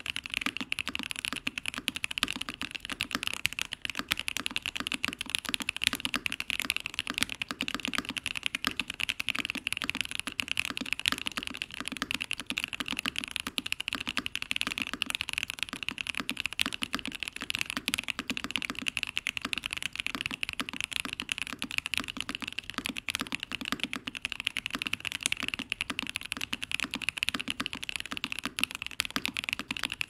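Fast, steady typing on a Mode Eighty custom mechanical keyboard with an aluminium plate, foam-filled stack-mounted case, stock Clackbits linear switches and GMK doubleshot ABS keycaps: a dense, unbroken stream of keystroke clacks without pauses.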